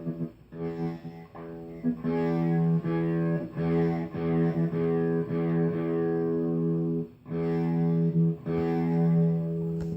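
A single melodic instrument played loudly, one held note at a time with short breaks between notes, played badly.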